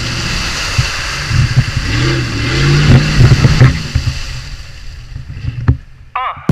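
Dodge Ram pickup's engine revving up and down as the truck churns through deep mud and slush, fading away in the last couple of seconds.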